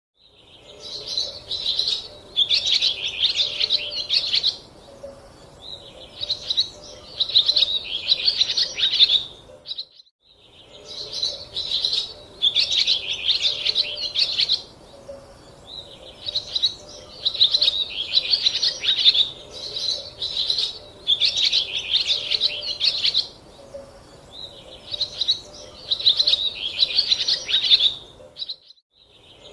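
Small bird chirping and twittering in rapid high bursts of a second or two, separated by short pauses; the sound drops out completely for a moment twice.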